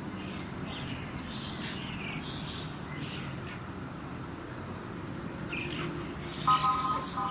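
Asian pied starling singing in short, scattered phrases of high notes, with a brief louder call of a few steady tones near the end, over a low background hiss.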